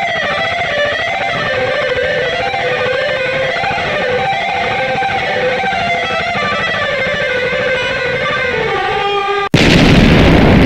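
Electric guitar music with a lead melody line. Near the end it cuts off abruptly into a loud explosion.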